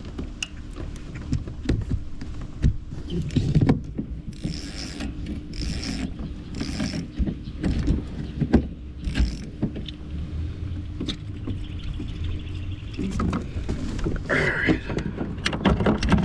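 Handling noise in a kayak as a deeply hooked bass is unhooked: scattered clicks, knocks and rattles, with several short bursts of hiss between about four and nine seconds in.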